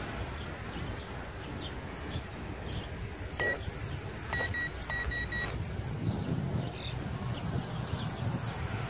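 Short electronic beeps from a toy quadcopter's handheld radio transmitter: one single beep, then a quick run of about six, over a steady low rumble of wind on the microphone.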